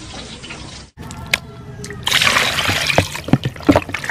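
Raw chicken pieces being washed by hand in a plastic basin of water: water splashing and sloshing. It starts loud about halfway in, after a quieter steady hiss.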